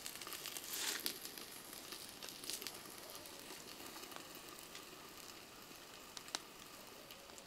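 Soft, faint pats and squishes of a hand pressing wet banana-flower rotti dough flat on a banana leaf, over a steady faint hiss with a few small crackles.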